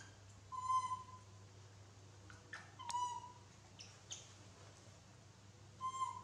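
Baby macaque giving three short, high, level-pitched coo calls of about half a second each, a couple of seconds apart, with a few brief faint squeaks in between.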